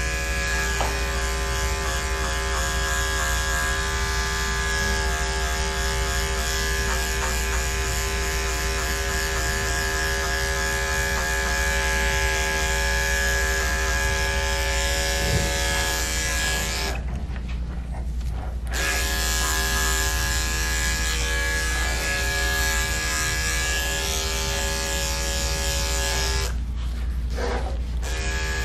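Electric dog grooming clippers buzzing steadily as they shave through a matted coat, cutting out briefly about two-thirds of the way through and again near the end.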